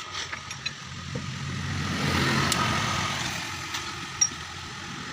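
A motor vehicle's engine running, growing louder to a peak about two seconds in and then fading, with a few light clicks and one sharp click near the end.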